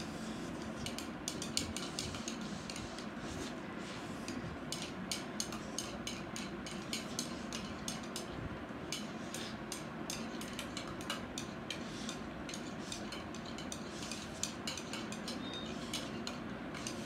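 Chopsticks clicking and tapping against plates while two people eat Maggi instant noodles: many small, irregular clicks, several a second.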